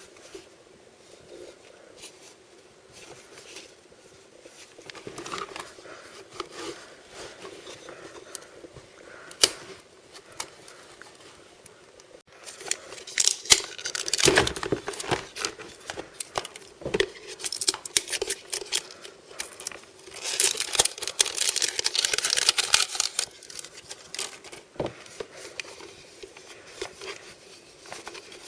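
Packaging of a blind-bag surprise being opened by hand: plastic or foil crinkling and tearing, with irregular rustling and a few sharp clicks. It grows loudest in two busy stretches, about halfway through and again near the end.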